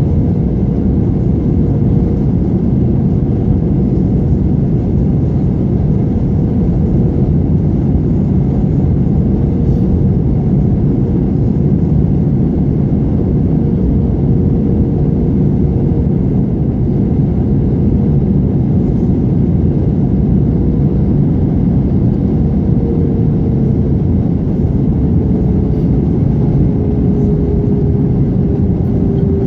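Steady cabin noise inside an Airbus A320 airliner in flight on its descent: a low rumble of engines and airflow, with a faint engine hum that drops slightly in pitch near the end.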